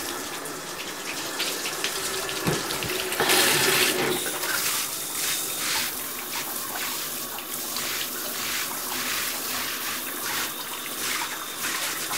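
Handheld shower sprayer running, water spraying onto and rinsing out a bathtub in a steady rush, louder for about a second around three seconds in.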